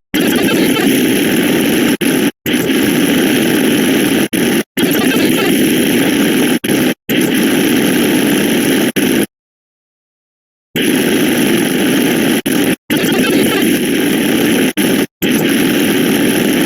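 A loud, dense wall of many sound effects layered on top of each other, heard as a harsh noisy jumble. It cuts out abruptly to total silence several times, briefly, and for about a second and a half a little past the middle.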